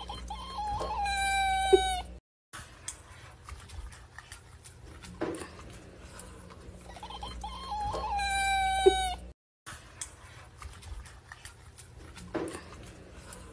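Domestic cat giving a drawn-out whining "eğeee" call, its pitch wavering and then held steady for about a second, ending in a sharp knock. It comes twice, with the start of a third near the end.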